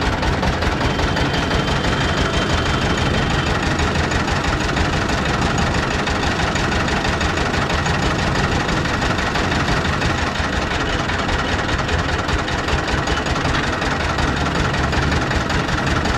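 Motor-driven sugarcane juice crusher running steadily, with a fast even rhythm, as cane stalks are fed through its rollers.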